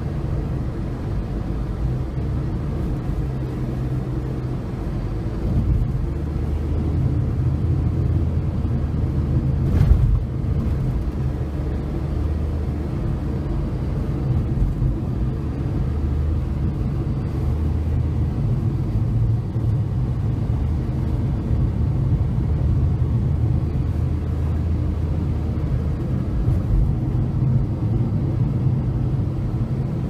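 Car driving on a road: a steady low rumble of engine and tyre noise whose hum shifts with speed, with one brief thump about ten seconds in.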